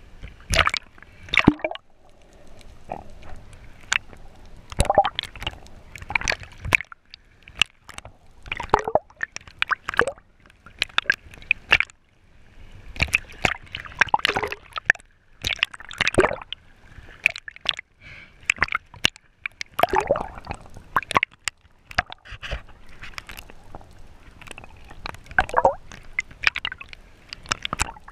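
Water splashing and sloshing at the surface around a camera that dips in and out of the water, in irregular bursts every second or two.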